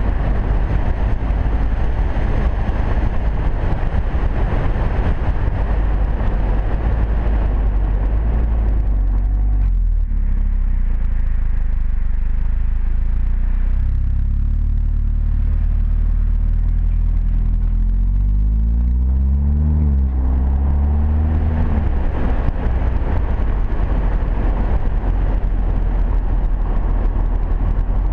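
Wind and road rush over a roof-mounted action camera on an Audi TT-S on the move. About ten seconds in the rush dies down and the low exhaust note of its turbocharged four-cylinder engine comes through, rising in pitch as the car accelerates just before twenty seconds, then the wind rush builds again.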